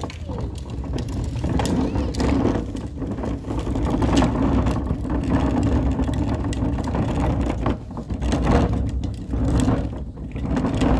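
Garbage truck engine running, a steady low rumble and hum, with a few short knocks.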